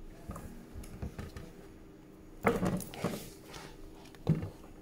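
A paperback book and papers being handled on a desk: a rustle of paper about halfway through and a short knock near the end.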